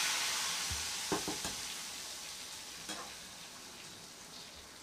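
Hot oil tempering (baghar) of mustard and cumin seeds, garlic, curry leaves and dry red chillies sizzling on a pot of cooked masoor dal just after being poured in, fading steadily. A few light clicks.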